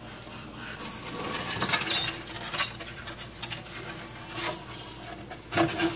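Scuffling and scratching on a wooden shelf as a savannah monitor seizes a live mouse, with a few high squeaks from the mouse. The scuffling starts about a second in.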